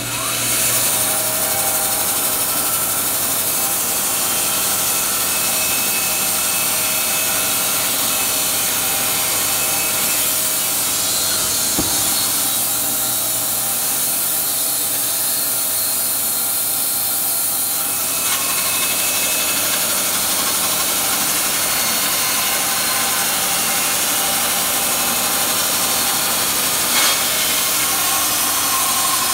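Wood-Mizer band sawmill running and its band blade sawing along a log that has nails in it. The blade is dishing in the cut. The saw runs steadily, with a short sharp tick about twelve seconds in and another small knock near the end.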